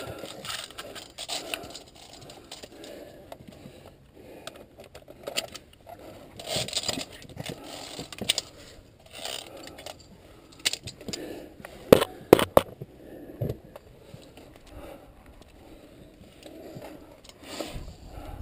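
Via ferrata lanyard carabiners clinking and scraping along a steel safety cable, mixed with the scuffing of climbing on rock. The clicks are scattered and irregular, and two sharp metal clicks come close together about twelve seconds in.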